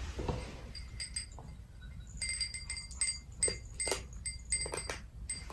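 Light clinking of small hard objects, a string of quick taps each with a brief ringing tone, most of them between about two and five seconds in.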